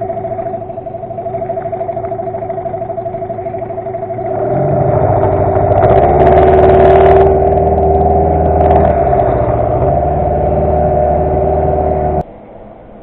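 Small boat motor running steadily with a whine. It speeds up and gets louder about four seconds in, then stops abruptly near the end.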